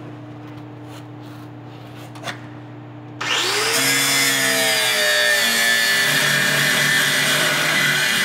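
Angle grinder starting about three seconds in and cutting into rusted steel exhaust mounts, loud and steady with a high screech from the disc on the metal. Before it starts there is only a low steady hum.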